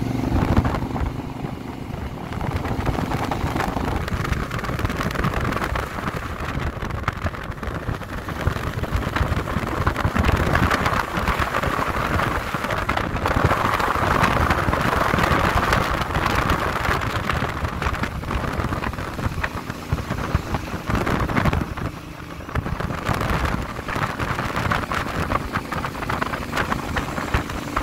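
Honda Africa Twin motorcycle under way at road speed: wind rushing over the microphone and tyre noise, with the engine running steadily underneath. The engine hum is clearer in the first few seconds, and the rush swells and fades with the ride.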